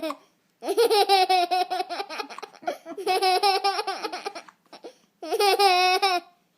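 Baby boy laughing hard in three long bouts of rapid, pulsing laughter, with short catches of breath between them.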